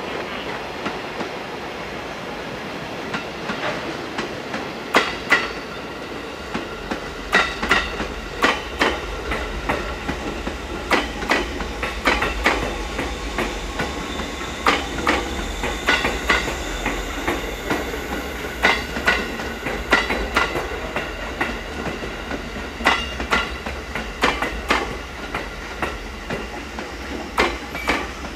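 A Musashino Line 205 series electric train rolling past, its wheels clicking over rail joints in repeated clusters of two to four sharp clicks. A low steady hum runs underneath from about four seconds in.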